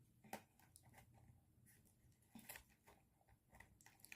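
Near silence, with a few faint taps and clicks of a small cardboard pin blind box being handled.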